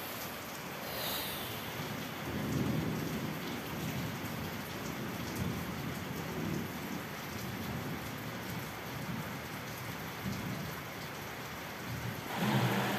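Rain falling steadily, with thunder rumbling low from about two seconds in. Near the end a louder, steady low hum comes in.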